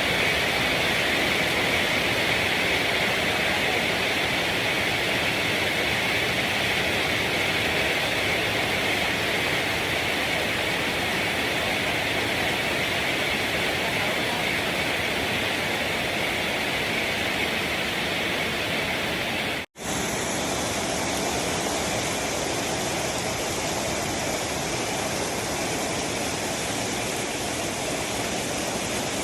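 Heavy rain falling, a steady loud hiss. It breaks off for an instant about twenty seconds in and then carries on.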